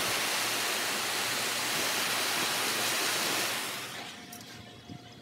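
Steady hiss of a gas torch flame burning a Peep marshmallow, dying away about three and a half seconds in, leaving a few faint ticks before the sound cuts off.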